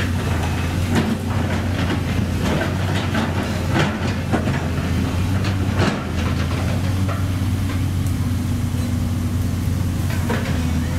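Sumitomo SH200 excavator's diesel engine running steadily under load, with frequent clanks and knocks of the bucket and steel tracks working broken asphalt and earth, thinning out after about six seconds.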